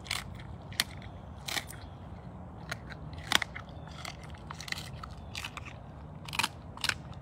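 A big cat crunching through raw meat and bones: irregular sharp cracks and crunches, about a dozen, the loudest a little over three seconds in.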